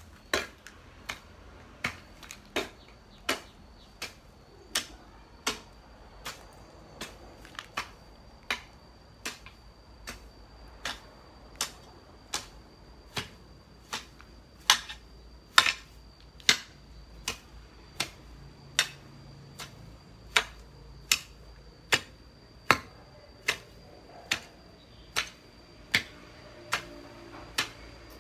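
Garden hoe chopping into grassy soil in a steady rhythm, a sharp strike about every three-quarters of a second.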